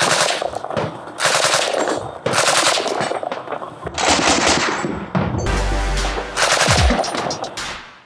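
Suppressed M240 7.62 mm belt-fed machine gun fired from its bipod in about six short bursts, with a Maxim Defense suppressor on the muzzle. Over the last couple of bursts, electronic music with a deep bass comes in.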